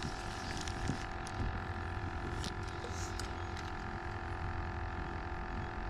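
A steady mechanical hum made of several fixed tones, with a few faint clicks.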